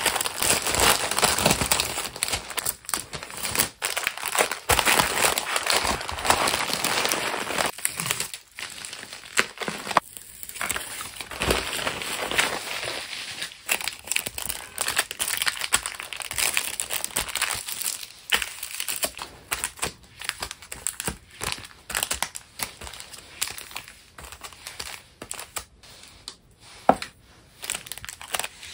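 Packaging crinkling and rustling as stationery orders are packed by hand, with many small clicks and handling noises. Busy for the first half, lighter later, with one sharp click near the end.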